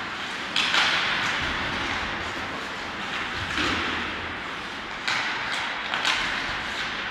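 Ice hockey play in an echoing rink: skate blades scraping and carving on the ice, with several sharp knocks of sticks and puck, each followed by a short burst of scraping hiss.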